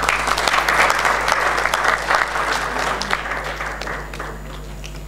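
Audience applauding, a dense patter of clapping that starts at once, holds for a few seconds and dies away about four seconds in.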